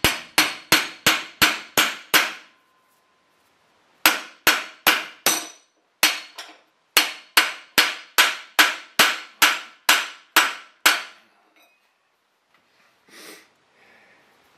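Metal hammer striking the rear sprocket hub of a 1973 Honda CL350 clamped in a steel bench vise, to drive out two broken, seized studs. Sharp ringing metallic blows come about three a second, in three runs with short pauses between, the last and longest lasting about five seconds.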